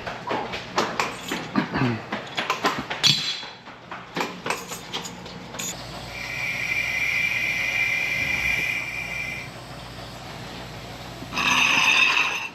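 Metal tools clicking and knocking, then compressed air hissing steadily for a few seconds, and a short, louder blast of air near the end.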